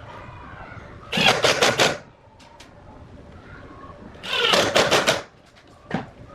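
Two short bursts of quick, sharp knocks, each lasting about a second, the first about a second in and the second about four seconds in, then a single knock near the end.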